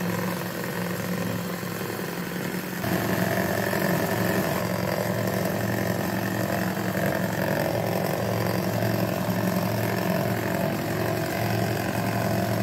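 Electric hand mixer running steadily, its beaters whisking cake batter in a stainless steel bowl. About three seconds in its sound steps up, louder and higher, and then holds.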